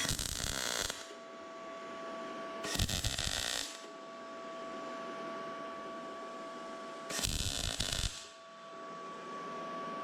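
R-Tech 181 MIG welder making three short spot welds on thin 1.2 mm mild steel with 0.6 mm wire, each arc crackling for about a second: at the start, under three seconds in, and about seven seconds in.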